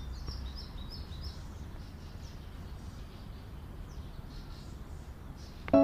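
Quiet outdoor ambience: a low steady background noise with faint, high bird chirps, most of them in the first second or so.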